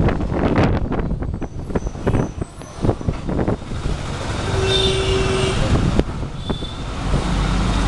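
Ride inside a moving bus with open windows: engine and road rumble with rattles and wind buffeting, and a steady tone lasting about a second midway through.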